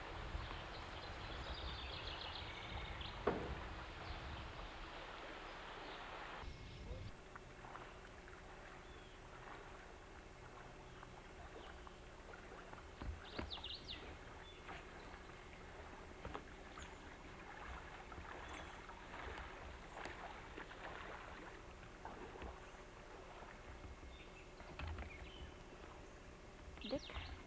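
A steady rush of flowing river water, then after an abrupt cut about six seconds in, quieter scattered splashes and knocks of a paddle as a solo racer paddles a racing canoe.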